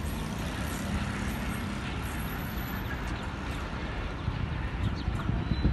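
A passenger train's coaches rolling away along the track: a steady rumble of wheels on rails.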